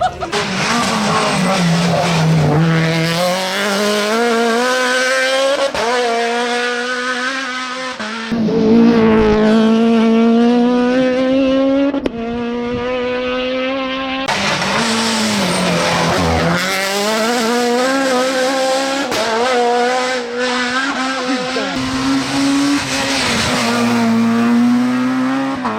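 F2000 rally car's high-revving, naturally aspirated two-litre engine at full throttle, its pitch climbing through each gear and breaking off at the upshifts. Twice, about two seconds in and again about sixteen seconds in, the revs fall away and then build again.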